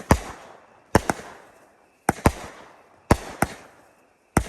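Texas Outlaw 'Booty Chaser' consumer firework cake firing aerial shots: sharp bangs about once a second, several coming in quick pairs, each trailing off in a fading tail.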